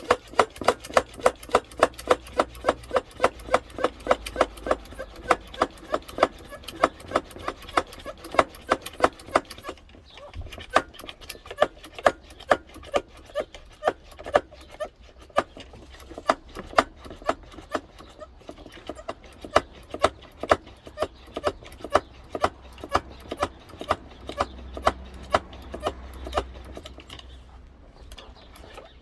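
Brake-fluid bleeder machine's pump clicking in an even rhythm, about three clicks a second, as it builds pressure in the car's brake system.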